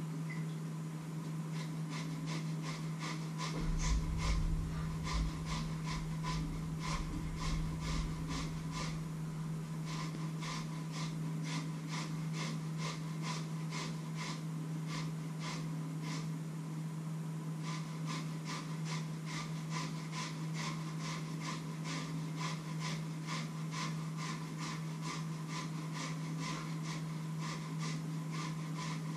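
Steady rhythmic tapping, about three strokes a second, from hand food preparation at a kitchen counter, over a constant low hum. A low rumble comes in about four seconds in and fades out a few seconds later.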